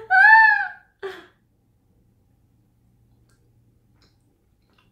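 A woman's short, high-pitched nervous vocal whine that rises and falls in pitch as she puts a candy in her mouth, followed by a brief breath about a second in.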